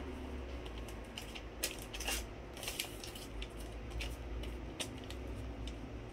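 Glue stick rubbed across folded colored paper, with paper rustling and a few light crinkles and taps.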